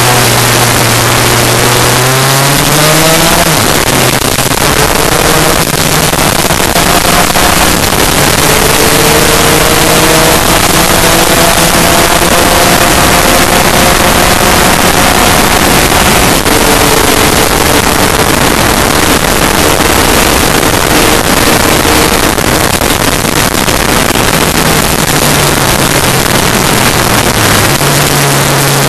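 Two-stroke Lambretta race scooter engine running hard under full throttle, heard on board with heavy wind rush over the microphone. The revs climb steadily for long stretches, fall sharply about sixteen seconds in and climb again, then drop back near the end as the scooter slows for a corner.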